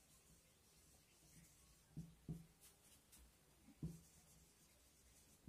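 Marker pen writing on a whiteboard: faint strokes, with a few soft knocks against the board about two seconds in and again near four seconds.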